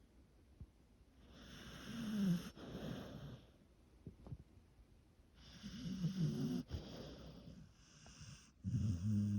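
A sleeping miniature bull terrier snoring in slow, regular breaths: three snores about three to four seconds apart, the third starting near the end.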